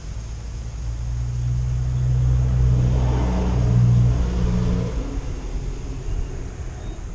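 A motor vehicle passing by: a low engine rumble that builds for a few seconds, peaks about four seconds in, then fades away.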